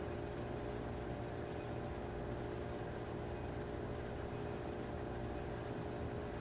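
Steady machine-like hum with an even hiss underneath, unchanging throughout, with no distinct knocks or clicks.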